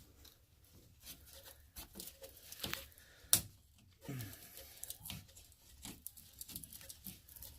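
Scattered light clicks and knocks from tools and drain fittings being handled during work on a cast iron drain line, at uneven spacing, with one sharp knock about three seconds in.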